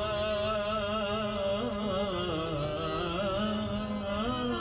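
Live Iraqi folk music on violin and oud, with one long melody line held and wavering with vibrato.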